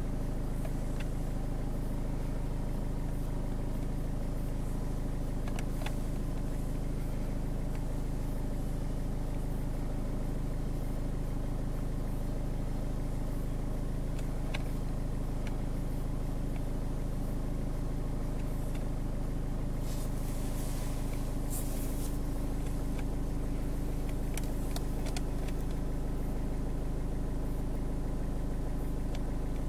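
Ford Fiesta MK7's 1.4 Duratorq TDCi four-cylinder diesel idling steadily, heard from inside the cabin, with a few light clicks over it.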